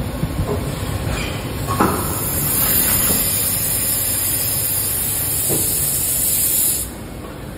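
Injection moulding machine running with a steady hum, while its mould for a round plastic basket opens and the part is released. A loud hiss, like escaping air or steam, starts about a second in, with a knock soon after, and cuts off suddenly near the end.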